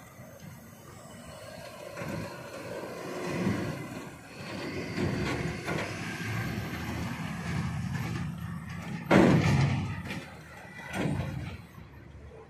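Crawler excavator's diesel engine running with its hydraulics working as the machine is moved on a lowbed trailer, with a loud knock about nine seconds in and a smaller one about two seconds later.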